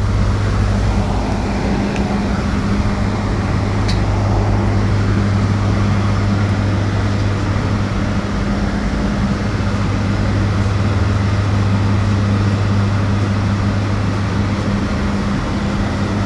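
Ride noise inside a moving electric bus: steady road and tyre noise with a constant low hum.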